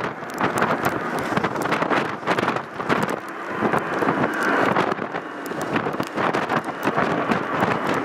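Strong gusty wind buffeting the microphone, over the engine noise of a twin-engine jet airliner climbing away overhead at go-around thrust after an aborted landing.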